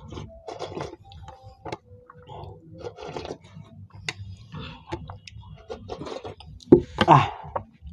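Eating sounds as people eat khichdi: irregular chewing and mouth noises with soft clicks. A brief, louder vocal sound comes about seven seconds in.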